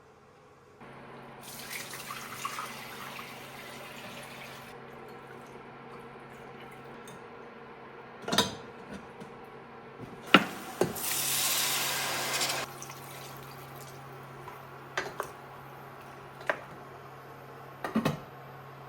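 Kitchen tap running twice for a few seconds each, with sharp clinks of dishes in between, over a steady low hum.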